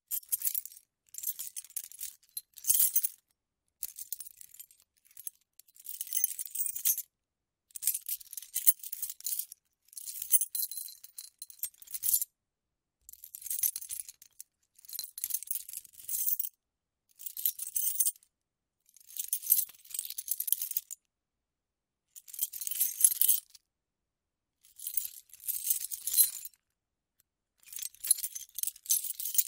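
A bunch of metal keys jangling, shaken and moved in a dozen or so separate bursts of about one to two seconds each, with short silences between them.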